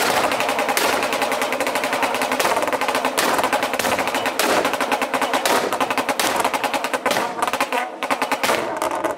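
Audi 3.0 TFSI supercharged V6 held on ignition-cut launch control: a steady engine note at a fixed rev limit under a rapid, near-continuous string of exhaust pops and bangs. The spark is being cut, so unburnt fuel is igniting in the exhaust.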